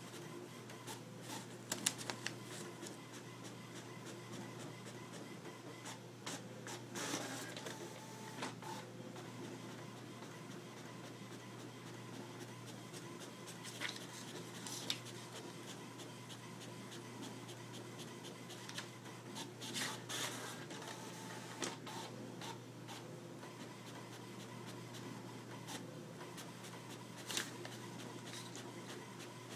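HP inkjet printer printing, running with a steady hum as the sheets feed out. Now and then there are sharp paper rustles and clicks as a cat paws at the emerging pages.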